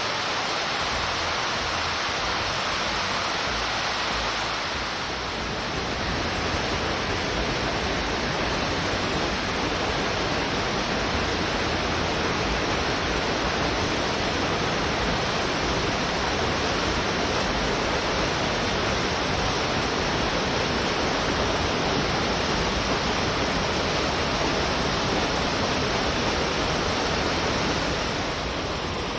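Amadaki waterfall: the steady rush of water falling and hitting the rocks below.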